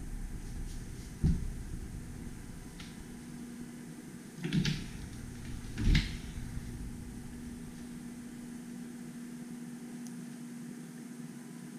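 A few dull knocks over a steady indoor hum: one about a second in, a pair around four and a half seconds, and one at six seconds. A steady low tone comes in with the second knocks and holds to the end.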